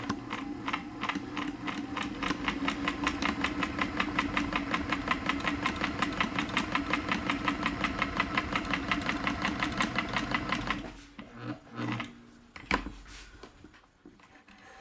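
Kenmore 158.1040 sewing machine running a straight seam at its longest stitch length, the needle mechanism clicking in a fast, even rhythm over the motor's hum, until it stops about eleven seconds in. A few handling knocks and one sharp click follow.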